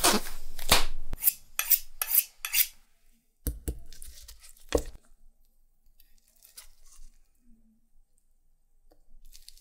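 A disposable glove being pulled on, a quick series of rustling snaps of the thin plastic against the skin, then a few knocks of a raw chicken wing and knife on a wooden cutting board. After that, faint wet squishing as the knife works between the wing's skin and flesh.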